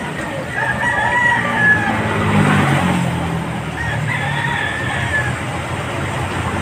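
A rooster crowing twice, each crow drawn out for over a second, over a steady low background rumble.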